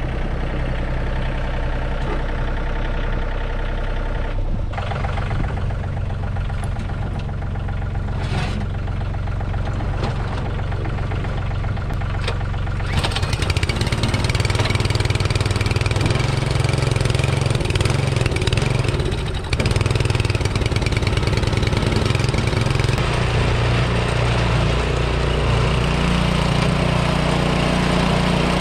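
An engine running steadily, getting louder and fuller about halfway through, with a brief dip a few seconds later.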